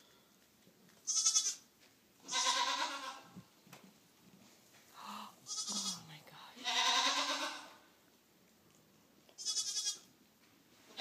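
Southdown Babydoll ewe and her newborn lamb bleating back and forth: short, high, quavering bleats about a second in and near the end, between longer, lower bleats.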